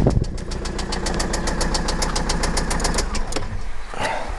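Renault Symbol engine idling with a rapid, even knocking from the accessory drive, which the mechanic later traces to the air-conditioning compressor and alternator, mostly the compressor. The engine is switched off about three seconds in and the knocking stops.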